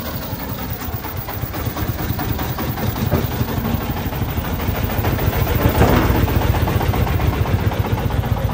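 Diesel engine of a công nông (Vietnamese homemade farm dump truck) running with a fast, steady chugging, growing louder about three seconds in as the truck pulls away over the dirt track.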